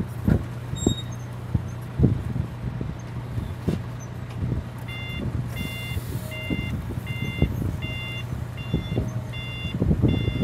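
Heli forklift's reversing alarm beeping about twice a second, starting about halfway through, over a steady low engine hum and scattered knocks and clunks.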